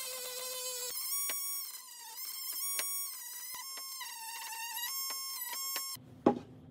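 Dremel rotary tool grinding wood, its high motor whine wavering up and down in pitch as the bit works the joint. The whine cuts off near the end, followed by a single sharp knock.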